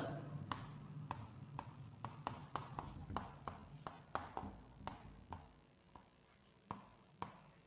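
Chalk tapping and scraping on a chalkboard as words are written: a run of quick, irregular taps, a few a second, thinning out after about five seconds to a couple of last taps.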